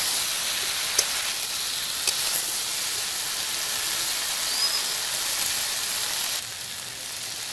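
Eggplant pieces frying in oil in a metal wok, a steady sizzle, with two sharp clicks of a metal spatula against the pan about one and two seconds in. The sizzle drops in level about a second before the end.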